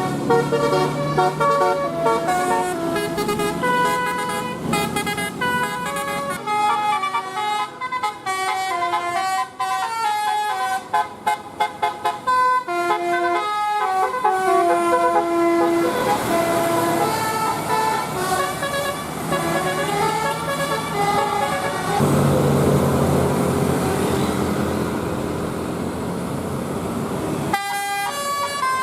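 Bus 'telolet' musical air horn (Basuri type) playing a quick tune, its notes stepping up and down several times a second. In the second half the notes give way to held horn tones over a loud rushing noise, and the sound changes abruptly near the end.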